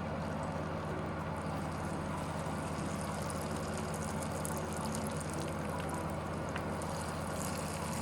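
Spring rolls frying in hot oil in a pan: a steady sizzle, with crackling that grows busier in the second half, over a steady low hum.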